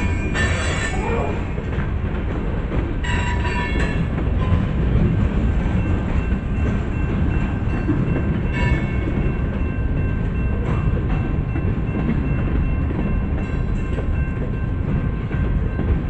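Pan Am Railways freight train's cars rolling past at a grade crossing: a steady, loud rumble of steel wheels on the rails, with a few brief high wheel squeals.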